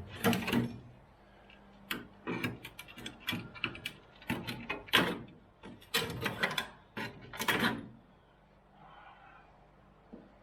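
Irregular knocks, clatters and scrapes of metal parts and tools being handled while rusted floor metal is worked on, quieting about eight seconds in.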